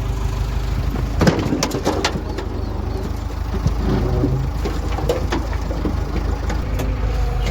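Diesel engine of heavy machinery running steadily, with several sharp metallic knocks and clanks, the clearest about a second and two seconds in.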